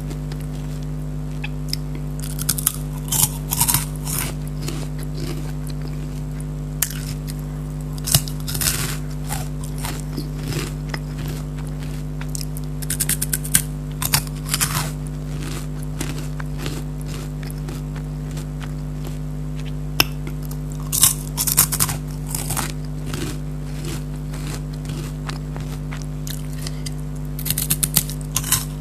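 Someone biting and chewing crunchy Kurkure corn puff snacks: bursts of crisp crackling crunches every five or six seconds, over a steady low hum.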